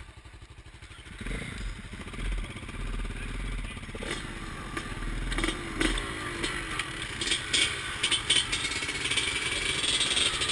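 Dirt bike engines idling and revving close by, the nearest being a KTM 450 XC-F's four-stroke single, with the pitch rising and falling as the throttle is blipped. A few sharp clacks come in the last few seconds.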